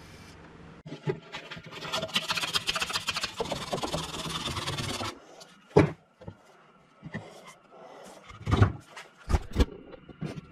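Woodworking in a shop: about four seconds of scraping and rubbing on wood, made of many quick strokes, then a few sharp knocks.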